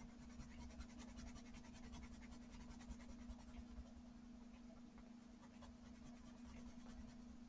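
Coloured pencil scribbling on textured watercolour paper: faint, rapid scratchy strokes as a swatch of colour is laid down.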